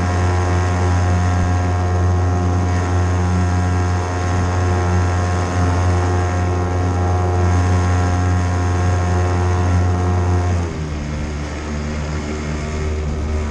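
Hangkai 3.5 hp outboard motor running steadily, pushing a small boat along. About three-quarters of the way through it is throttled back: the engine note drops to a lower pitch and gets a little quieter, then holds steady.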